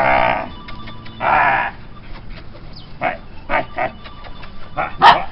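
Border Collie puppy vocalising while excited: two drawn-out high cries, one at the start and one about a second in, then a string of short yips over the last two seconds, the loudest near the end.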